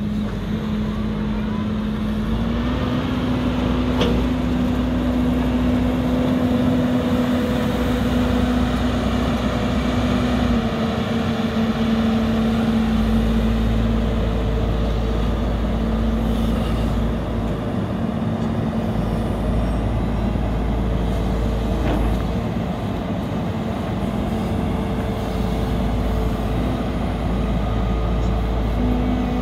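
JCB JS145W wheeled excavator's 4.8-litre four-cylinder JCB EcoMax diesel running as the machine drives, a steady engine note whose pitch steps slightly up and down a few times. Two brief clicks are heard, about four seconds in and again about twenty-two seconds in.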